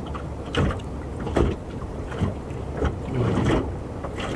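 Water slapping against the hull of a small moored boat rocking in a swell, with irregular knocks and wind on the microphone.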